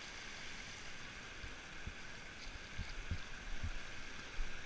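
Fast river water rushing over rocks, a steady hiss, with a few dull low thumps on the microphone in the second half.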